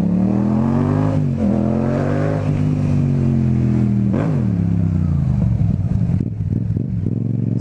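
Motorcycle engine heard from the rider's seat, climbing in pitch as it accelerates, with a short dip about a second in like a gear change, then easing off with a sharp drop about four seconds in and running lower after that.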